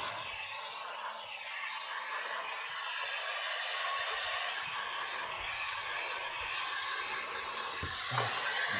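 Heat gun blowing steadily as it heat-shrinks ceramic window film onto a tractor cab's curved glass, with a brief low thump near the end.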